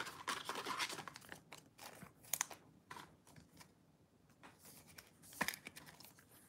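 Faint crinkling and rustling of card-pack wrappers and cards being handled, in uneven spurts with scattered clicks.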